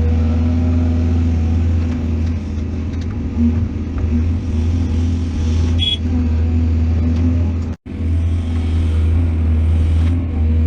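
Heavy earthmoving diesel engine running steadily with a deep, low hum. A brief high squeak comes about six seconds in, and the sound cuts out for an instant near eight seconds.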